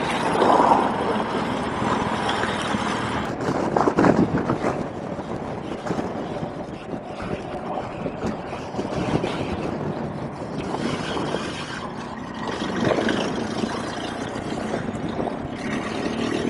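Wind noise rushing over the microphone, rising and falling in gusts, with a BMW R1200GS Adventure's flat-twin engine running underneath.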